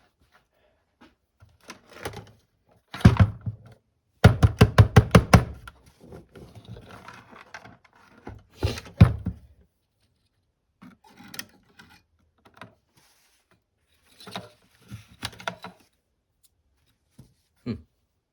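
Handling and knocking sounds on a workbench: scattered thuds, a quick run of about nine knocks around four seconds in, and a couple of heavier thuds about nine seconds in.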